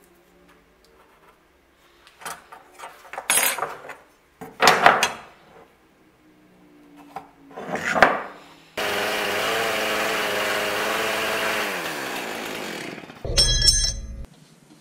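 Scattered scraping and handling sounds of marking out a steel bar on a workbench. Then a metal-cutting horizontal bandsaw cuts the AEBL stainless steel bar: a steady loud run whose pitch sags near the end. A short loud clatter follows.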